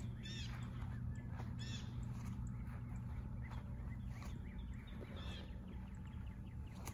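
Birds calling outdoors: a few louder calls, near the start, at about two seconds and again at about five seconds, with scattered smaller chirps between, over a steady low hum.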